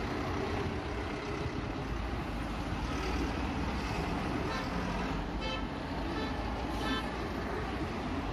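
Steady city street traffic noise: a continuous rumble of passing cars and buses, with a few brief pitched toots about five to seven seconds in.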